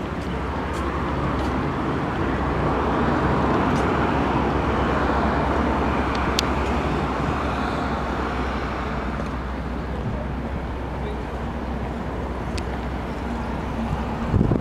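Road traffic going by, a vehicle passing that swells over the first few seconds and slowly fades, over a steady low hum, with a few faint clicks.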